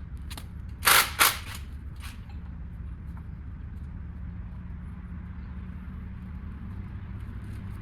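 Two loud, sharp knocks in quick succession about a second in, with a few lighter clicks around them, over a steady low hum: the clatter of tools and parts during hands-on work on a car being readied for an engine pull.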